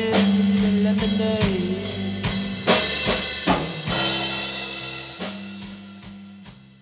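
Closing bars of a band's song: drum kit strikes over held notes, with the whole song fading out over the last few seconds.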